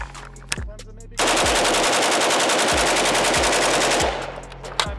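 Pioneer Arms 5.56 AK-pattern rifle firing one unbroken full-auto burst of about thirty rounds, emptying the magazine in about three seconds without a stoppage; it starts a little over a second in. A few sharp clicks of the rifle being loaded come before it.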